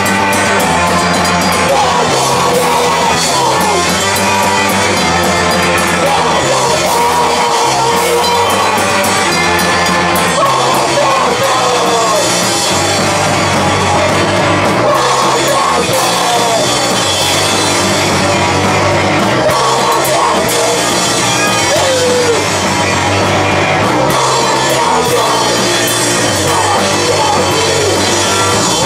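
A live rock band playing loud: electric guitars and a drum kit with cymbals, without a break.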